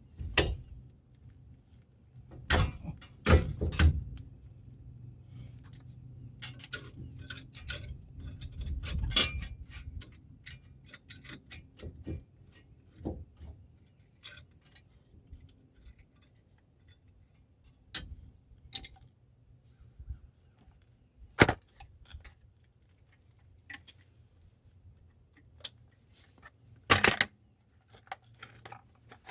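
Scattered metallic clinks and knocks of hand tools and metal parts being handled, with a few louder knocks and quiet gaps between.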